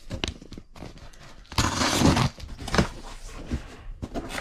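Cardboard shipping box being opened by hand: a rip of tape or cardboard about a second and a half in, among knocks and rustles of the flaps being handled.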